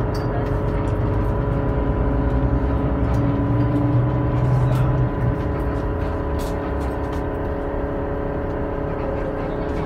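Tour bus heard from inside the cabin: steady engine and road noise with a hum, the low engine note dropping off about five seconds in as the bus eases off, typical of slowing to a stop.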